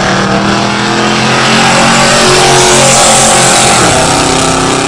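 Two V8 muscle cars, a 1970 Plymouth Duster 340 among them, racing side by side at full throttle down a drag strip, their engine notes climbing in pitch as they pull away.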